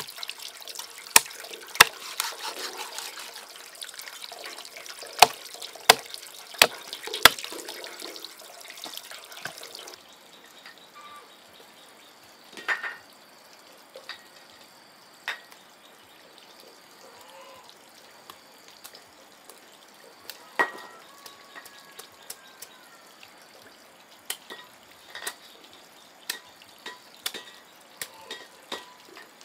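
Water trickling and splashing, with sharp knocks, for about ten seconds. It then drops abruptly to a quieter stretch of scattered clicks and knocks.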